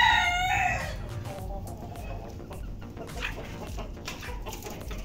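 A rooster's crow ends in the first second on a long falling final note, followed by softer, scattered clucking from the chickens. The flock is unsettled by a kite perched overhead.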